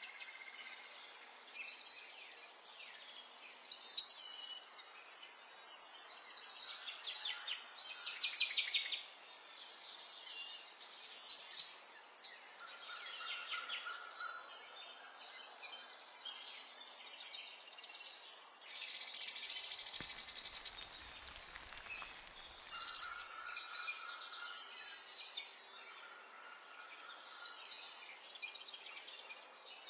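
Several songbirds singing and chirping over one another in quick, repeated high phrases and trills, over a faint steady hiss.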